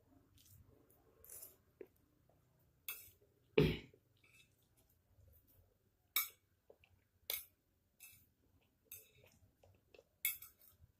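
Eating noises: a spoon or fork clinking and tapping against a dish in scattered short sounds, with one louder dull thump about three and a half seconds in.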